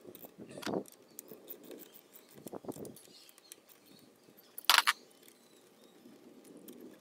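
Light clicks and clinks of a hand wrench working the rear chain adjuster bolts of a Honda Monkey 125, slackening the drive chain. One sharp metallic clink comes about five seconds in.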